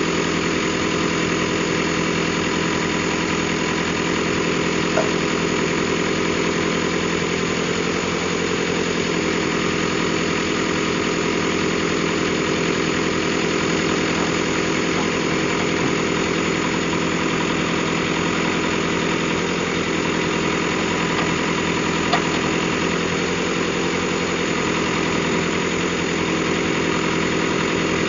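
Heavy diesel engine of a backhoe loader or truck running steadily near the microphone, with slight rises and falls in revs a few times and two brief clicks.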